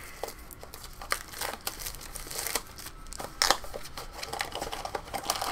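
Funko Mystery Minis blind-box packaging being handled and opened: the small cardboard box and the bag inside it crinkling, with irregular crackles and rustles.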